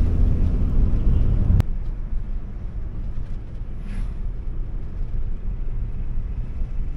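Steady low road and engine rumble of a moving car heard from inside the cabin, dropping to a quieter level at an abrupt cut about a second and a half in.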